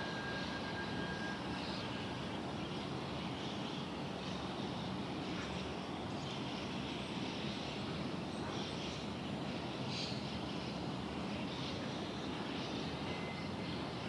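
A steady distant rumble, with faint wild-bird calls scattered above it and a thin held whistle-like note that ends about a second in.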